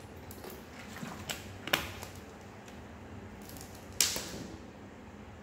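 Drinking from a plastic water bottle: a few sharp clicks and crinkles of the thin plastic, the loudest about four seconds in.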